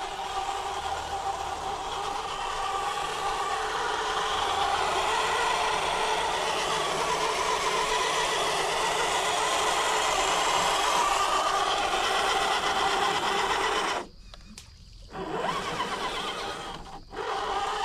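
Traxxas TRX4 RC crawler's electric motor and gear drivetrain whining steadily as it drives, growing louder as the truck comes closer. It cuts out for about a second near the end and briefly once more just after. The owner finds this drivetrain noise suddenly loud.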